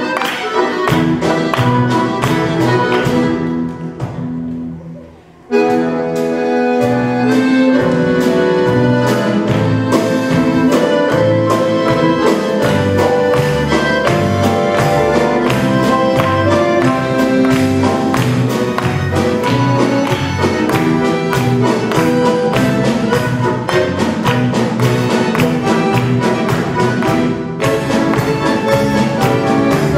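Live band music: harmonica over piano, bass guitar and drum kit. The music fades out about three to four seconds in, then the whole band comes back in sharply a second or two later and plays on with a steady drum beat.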